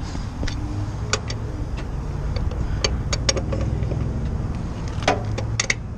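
Scattered sharp metal clinks of tire-changing tools and lug hardware, about half a dozen over a few seconds, over a steady low engine rumble.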